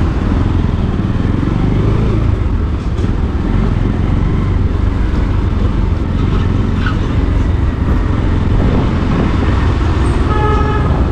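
Motorcycle engine running steadily at low speed, heard from on the bike. A short vehicle horn beep sounds near the end.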